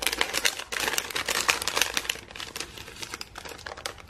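A plastic packet of paper die-cuts being opened and its contents handled: a rapid run of crinkles and clicks, busiest in the first two seconds and thinning out after.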